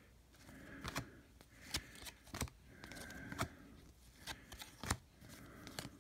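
Stack of 1998 Bowman baseball cards being flipped through one at a time by thumb, each card giving a short, sharp tap or snap as it slides off the stack, roughly once a second.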